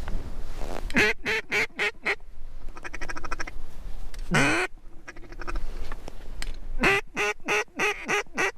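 Mallard duck call blown in quacking sequences: a run of about five quacks a second in, one long drawn-out quack in the middle, and a run of about seven quacks near the end, each falling in pitch. Steady wind rumble on the microphone underneath.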